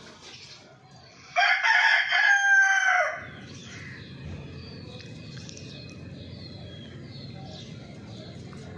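A rooster crows once, a loud call of under two seconds whose drawn-out last note dips at the end, followed by faint high chirping.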